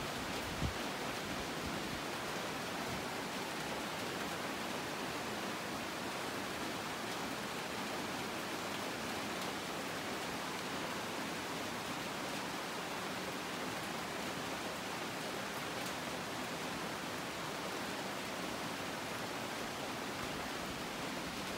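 Steady, even hiss of rain falling on rainforest foliage, with one soft low knock just under a second in.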